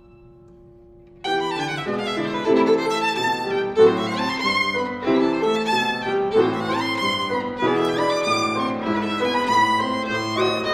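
Solo violin playing a classical piece with piano accompaniment. After about a second of a faint fading held note, the violin and piano come in loudly with a lively passage of many quickly changing notes.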